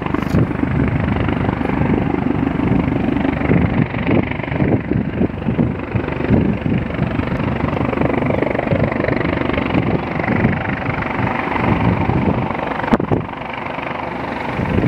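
Twin-turbine AS365 Dauphin helicopter flying close and low, its rotor beating in quick pulses over a steady turbine hum, with some wind on the microphone.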